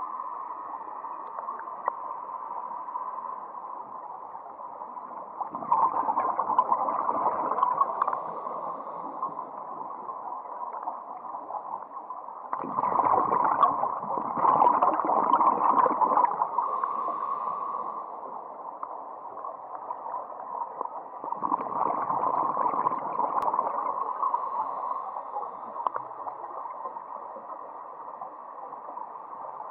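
Scuba regulator exhaust bubbles heard underwater: three bursts of bubbling a few seconds long, about every eight seconds as a diver breathes out, over a steady hum.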